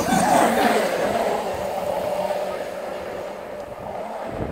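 Traxxas X-Maxx RC monster truck's electric motor whining steadily as the truck skims across the surface of a lake, the whine falling slightly in pitch and fading as it moves away over a hiss of spray and wind.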